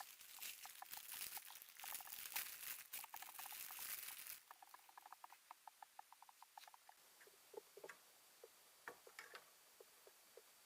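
Faint handling noise from working on a laptop: rustling and crackling for about the first four seconds, then a run of small, quick clicks and ticks of plastic and small parts.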